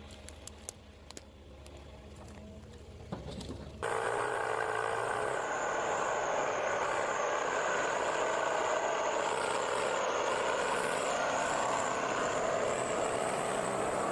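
Heavy logging machine at work: a quiet low engine rumble with scattered clicks and knocks. About four seconds in it cuts abruptly to a much louder, steady engine noise with a high, wavering whine over it.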